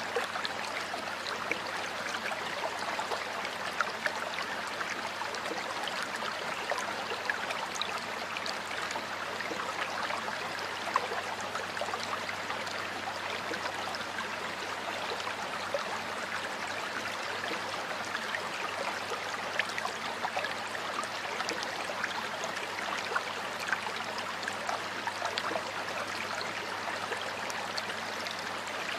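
Flowing stream or small river water running and burbling steadily, with many small splashes and drips.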